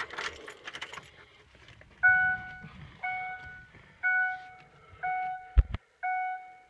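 Keys jangling at the steering column as the key goes into the ignition of a 2007 Ford F-150. Then the truck's dashboard warning chime dings about once a second, five times, with a sharp thump near the end.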